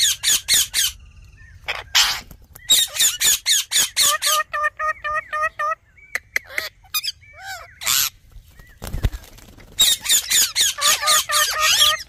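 Ringneck parakeets screeching and squawking in quick shrill bursts, with a short run of evenly repeated chattering notes about four seconds in and a dense spell of overlapping shrieks near the end.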